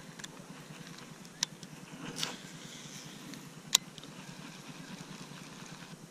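A few sharp clicks from a baitcasting reel being handled, the loudest one a little under four seconds in, with a brief swish between them, over a steady low hum.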